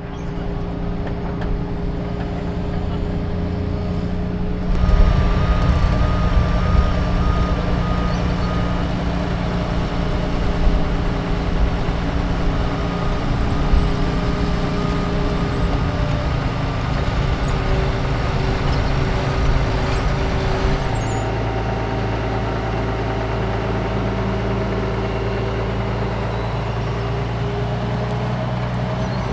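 Heavy diesel engine of a Liebherr crawler dozer running steadily under load as it pushes sand. A reversing alarm beeps for a few seconds about five seconds in.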